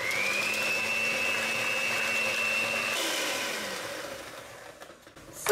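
Electric hand mixer with wire beaters beating eggs and sugar in a bowl: the motor whine rises as it starts, runs steadily for about three seconds, then winds down and fades out.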